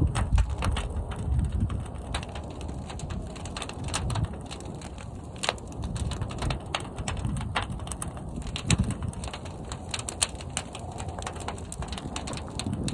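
Fire burning inside a large kiln: a steady low rumble with frequent sharp crackles and pops.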